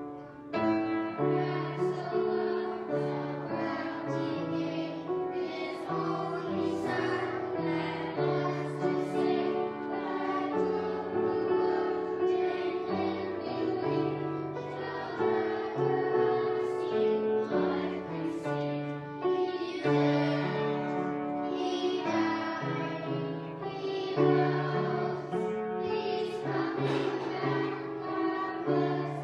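A group of young children singing a Sunday school song together, with piano accompaniment.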